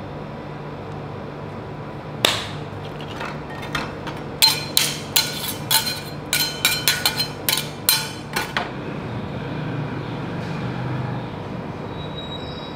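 A run of about a dozen sharp metallic clinks and taps with a ringing edge, preceded by a single strike, over a steady low hum.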